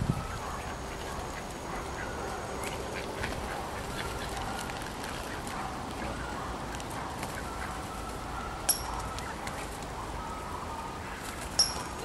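Ducks and Canada geese in a feeding flock calling now and then in short calls. Two sharp clicks cut in, one about three quarters of the way through and one near the end.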